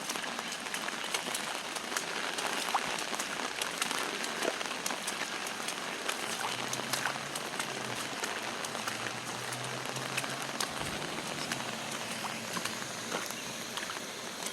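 Steady rain falling, with many individual drops ticking sharply close by, and a faint low hum partway through.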